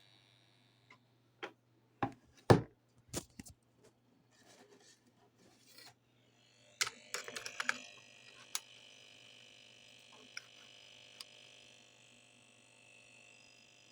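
Sharp plastic clicks and knocks, then from about seven seconds in a faint steady electronic tone made of several layered pitches from the electronics kit's sound circuit, with a few more clicks over it.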